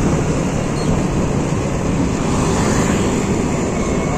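Steady wind rush on the microphone mixed with the road and engine noise of a Honda Scoopy scooter being ridden, without a break or change.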